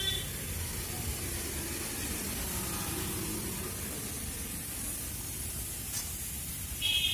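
Garden sprinkler head spraying water, a steady hiss, with a brief high chirp near the end.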